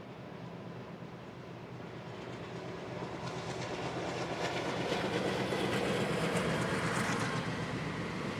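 A train passing, growing louder as it comes near, with its wheels clicking rapidly over the rail joints. It is loudest about five to seven seconds in, then eases slightly.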